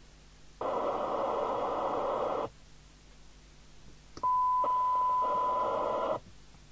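Mustang 3000 FM CB radio's loudspeaker cutting in and out as its squelch opens and closes on the threshold of a test signal. First comes a band of hiss for about two seconds, then after a gap a steady test tone with hiss for about two seconds; each stops abruptly.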